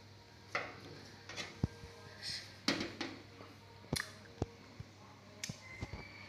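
Metal spoon scooping steamed fish out of a steamed papaya, with light clinks and scrapes against the fruit and dishes: a dozen or so short knocks and taps at irregular intervals.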